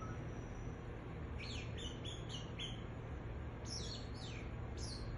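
Pet parrot chirping: short high chirps that fall in pitch, coming in small quick runs of two to four, over a low steady hum.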